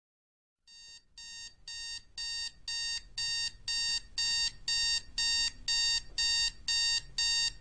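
Electronic alarm clock beeping, about two short beeps a second, getting louder over the first few seconds and then holding steady.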